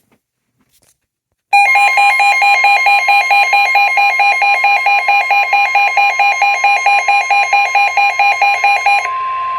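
Emergency weather alert tones starting about a second and a half in: a loud, rapidly pulsing electronic beep from a weather radio receiver's alarm over NOAA Weather Radio's steady warning alarm tone. The beeping stops near the end while the steady tone carries on. Together they signal that a warning, here a severe thunderstorm warning, is about to be read.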